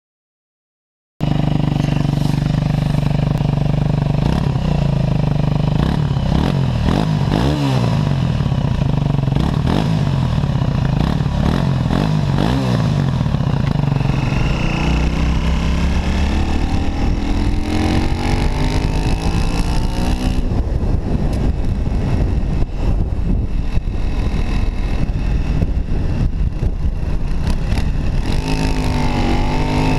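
MZ SM 125 supermoto's 125 cc single-cylinder four-stroke engine with its original exhaust. It starts sounding about a second in and runs steadily with two short throttle blips. From the middle onward the pitch climbs as it revs and pulls, drops sharply, then climbs again near the end.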